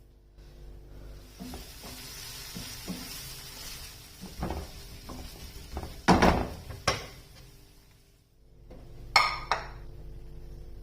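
Kitchen cooking sounds: a soft hiss like sizzling with a few light knocks, then sharp metal clanks of pots, pans and utensils about six, seven and nine seconds in, the loudest near six and nine seconds.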